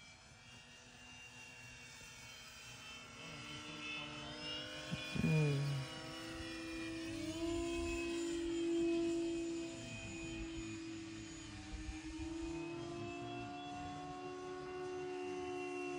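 Electric RC model airplane's motor and propeller whining in flight, its pitch sliding up and down as it flies past, loudest about five seconds in.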